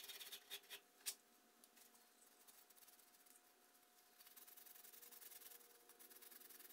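Faint scrubbing of a maroon abrasive pad on the wet cast metal base of a caliper. There are a few soft knocks in the first second, then steadier rubbing in the last few seconds.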